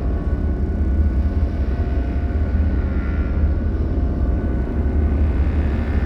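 Dark horror ambience drone: a steady, deep rumble with faint high sustained tones above it.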